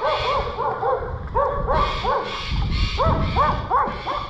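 An animal calling over and over in quick, short yelps, several a second, each rising then falling in pitch.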